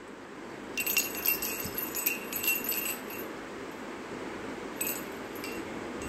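A baby's wooden rattle toy jingling with a bright, bell-like tinkle as it is shaken, in one longer burst of about two seconds and a brief second shake near the end.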